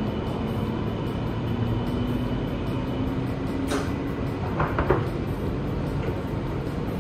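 Running noise of an E2 series 1000 Shinkansen heard in the deck by the gangway door: a steady rumble with a faint whine that slowly rises in pitch. A few brief rattles come about four and five seconds in.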